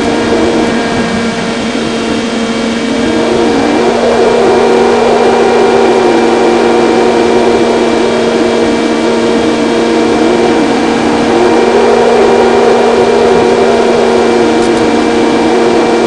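Electric motor and propeller of a model airplane in flight, picked up by an onboard microphone, running steadily with wind rushing over the airframe; it gets louder about three seconds in.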